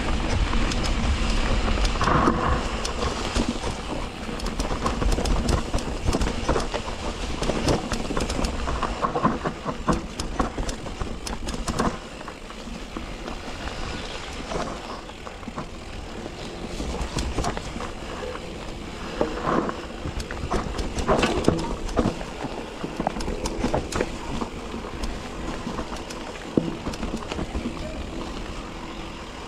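Electric mountain bike being ridden over rough trail, heard from a chest-mounted action camera: wind rumble on the microphone, tyres on stones, and constant clicks and rattles from the bike. The wind rumble is heaviest for roughly the first twelve seconds, then eases.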